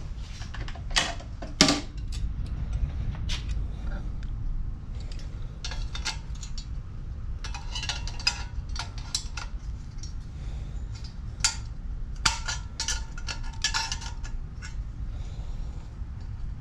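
Scattered clinks, clatters and knocks of hard objects being handled and set down, some ringing briefly, over a steady low hum. The loudest knocks come about a second and a half in and near the middle.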